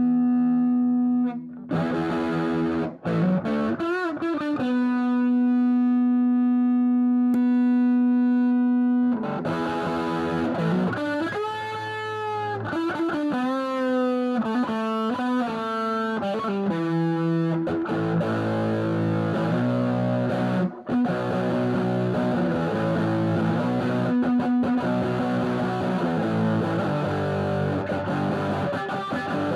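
Electric guitar played through the Big Red pedal, a clone pairing a Red Rooster germanium treble booster with a Red Llama overdrive-fuzz, into a Bluesbreaker amp: distorted, long-sustaining single notes, some bent up and wavering, then a run of distorted chords and riffs from about halfway through.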